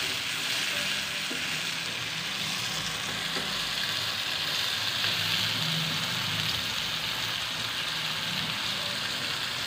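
Chopped onion, tomato and green chilli sizzling steadily in ghee in a frying pan over a gas flame, stirred with a wooden spatula.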